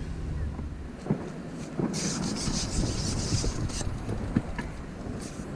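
Carbon match-fishing pole being shipped back, sliding through the hands and over the pole rests: a rasping rub lasting nearly two seconds about two seconds in, with a few light knocks of the pole sections.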